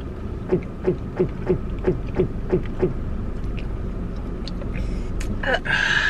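Quick, regular gulping as sparkling water is chugged from a can: about eight swallows, roughly three a second, each a short falling glug. A strained voice sound follows near the end.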